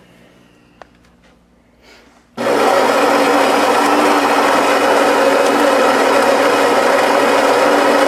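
Saeco Minuto super-automatic espresso machine's built-in grinder grinding beans for a double shot. It starts suddenly about two and a half seconds in and runs loud and steady, then stops abruptly near the end.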